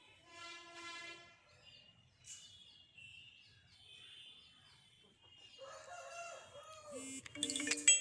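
Aseel rooster crowing once, a call of about a second near the start, followed by faint chirping of small birds. Music comes in near the end and is the loudest part.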